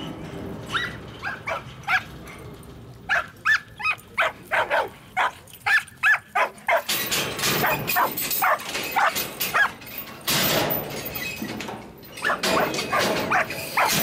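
Young Australian Shepherd barking in quick, sharp barks, about two or three a second, as it works cattle through a pipe fence. From about halfway there is a rushing noise under the barks.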